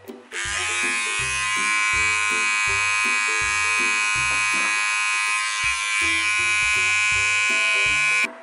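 Corded electric hair trimmer running with a steady buzz while it trims the hairline around the ear. It starts just after the beginning and cuts off near the end.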